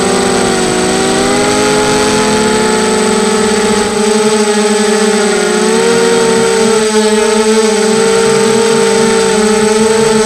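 Electric motors and propellers of mini FPV quadcopters whining, several pitches at once that waver slightly with the throttle. A low rumble under them drops away about four seconds in.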